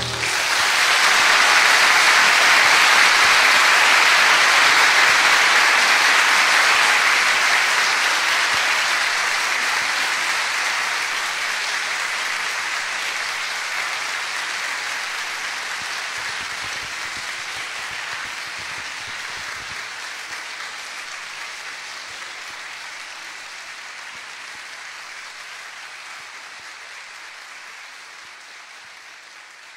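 Concert audience applauding. It is loudest in the first several seconds and then fades steadily away.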